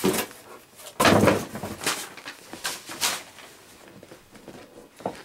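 Cardboard box and packing being handled and moved: about five dull knocks and scrapes in the first three seconds, the loudest about a second in, then quieter rustling.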